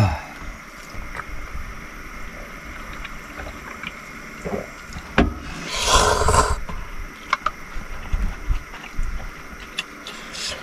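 Someone eating a bowl of ramen: scattered light clicks and taps of utensils against the bowl, with one louder noisy sound lasting under a second about six seconds in.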